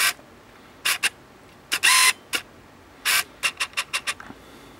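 Bunch of keys on a locking climbing carabiner being handled, making a string of short metallic clicks and clinks, with one longer ringing clink about two seconds in.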